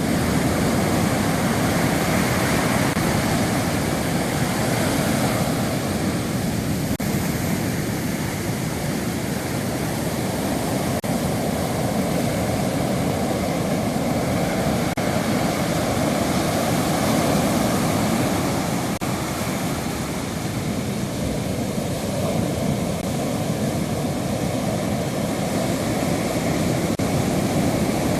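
Sea surf on a beach: a steady rush of breaking waves that swells and eases slightly, with no distinct single breaks.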